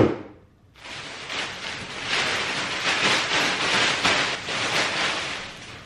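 A sharp knock at the start, then from about a second in a steady crinkling and rustling of plastic air-pillow packing as a long string of it is pulled about and shaken.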